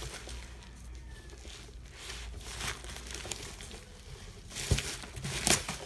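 Packaging being handled and unwrapped: crinkling and rustling, with two louder sharp knocks near the end.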